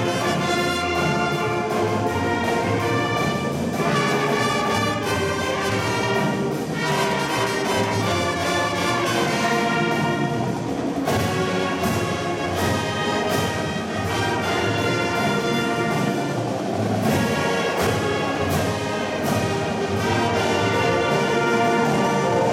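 High school marching band playing its competition show: the brass section holds full, loud chords over sharp drum accents.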